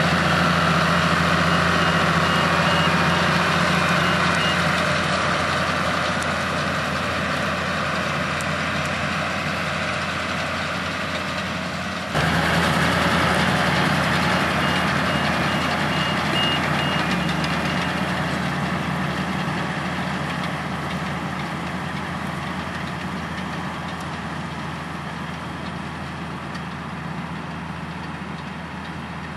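Heavy farm machinery engines running steadily, slowly fading away, with an abrupt jump back to full level about twelve seconds in. Twice a faint high beeping, like a reversing alarm, sounds over the engine.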